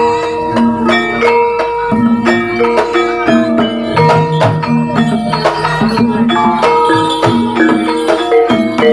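Javanese gamelan music accompanying a kuda lumping dance. Metal mallet-struck instruments ring out a melody of held notes over frequent sharp drum and percussion strokes.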